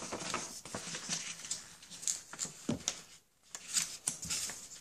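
A sheet of paper being folded over by hand: light rustling with a scattered run of short crackles and taps as it is creased.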